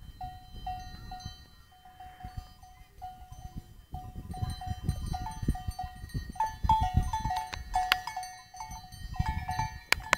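Bells on grazing alpine livestock clanking irregularly, several bells at different pitches, growing busier about four seconds in and busiest near the end.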